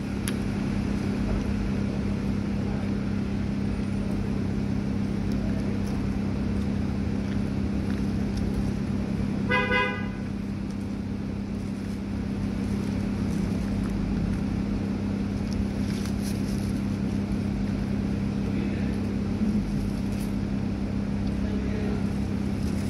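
Steady low hum and rumble of traffic, with one short vehicle horn toot about ten seconds in.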